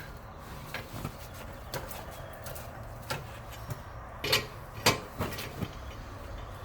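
Scattered sharp metallic clicks and knocks, about eight of them and the loudest near five seconds in, from a hand wrench and socket tightening a wheel's lug nuts, over a steady low hum.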